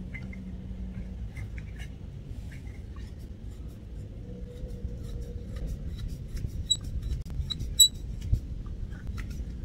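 A brass fitting being screwed onto a copper rain-gauge pipe by hand: faint scraping and clicking of metal on metal, with two light metallic clinks in the second half.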